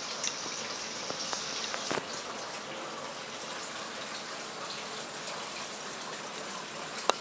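Steady rushing, water-like noise, with a few faint clicks and one sharp click near the end.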